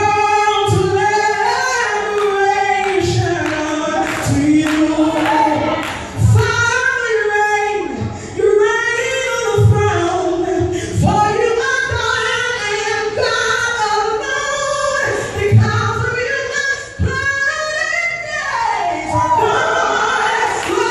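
A woman singing a gospel song live, with musical accompaniment and a deep beat about every one and a half seconds.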